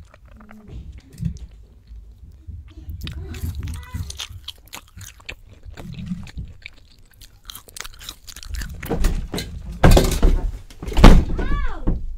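Close-up chewing and crunching of a burger and fries into a microphone, with many small wet mouth clicks. About ten seconds in, a few louder thumps and a short pitched sound break in.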